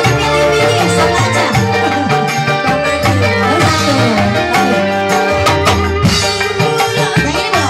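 Live dangdut band music: a Korg keyboard and electric guitar play over a steady hand-drum beat.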